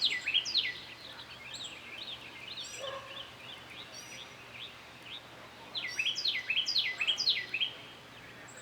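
A bird singing: a burst of quick high notes, each sliding downward, at the start, softer chirps in between, and another burst about six seconds in.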